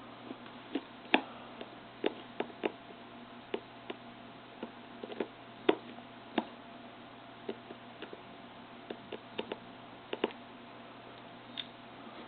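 Light, irregular clicks and ticks from a very small screwdriver and fingers working tiny screws out of a cell phone's plastic casing.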